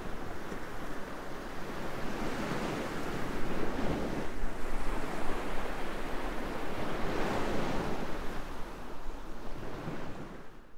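Waves washing onto a beach with wind, the noise rising and falling in slow swells and fading out near the end.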